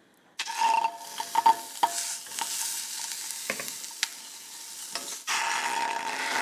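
Chicken pieces laid skin-side down in a preheated, unoiled Rena Ware stainless steel pan, sizzling loudly from the moment they land about half a second in, with a few sharp knocks against the pan. The sizzle swells again near the end.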